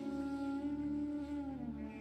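Soft ambient meditation music: sustained, held tones that slowly glide in pitch, the main tone sliding lower near the end.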